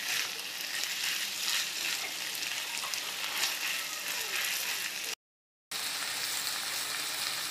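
Sliced rattan shoots and tuhau sizzling as they are stir-fried in a metal wok, with the light scrape of a spatula turning them. The sound cuts out completely for about half a second after five seconds in.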